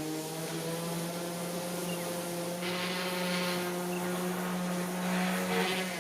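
A steady droning hum holding one low pitch with a stack of overtones, with a rushing hiss swelling twice, about halfway through and near the end.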